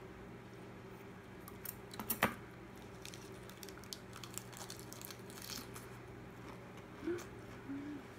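Eating a lettuce wrap: a sharp clink of chopsticks or utensil against the dishes about two seconds in, then light crisp crackles of chewing, over a low steady hum.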